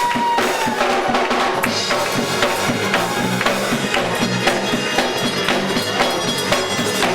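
Gospel band music with a steady drum-kit beat, bass drum and snare under sustained low instrumental notes; a held high note fades out about a second in.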